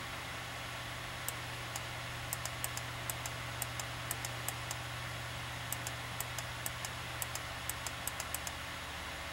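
Laptop running: a steady low hum and hiss, with irregular light high ticks, about twenty of them, scattered through it.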